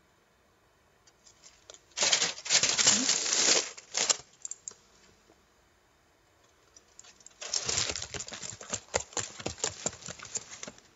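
Close, crackly crinkling of aluminium foil being handled, in two bursts: one about two seconds in and a longer one from about seven seconds in.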